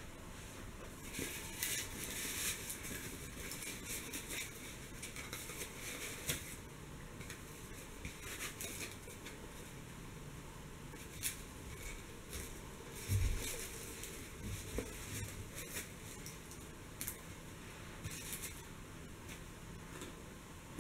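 Soft rustling and scratching of a long lace-front wig being pulled onto and adjusted on a styrofoam mannequin head by hand, with scattered small clicks and one dull low bump about two thirds of the way through.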